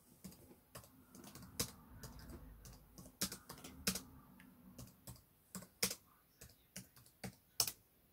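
Typing on a computer keyboard: irregular key clicks at an uneven pace, a few strokes louder than the rest.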